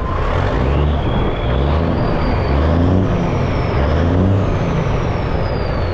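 Kenworth K100 cabover's Cummins Big Cam 350 diesel revved up from idle and let back down. The turbocharger whine climbs to a high pitch, then falls away slowly near the end.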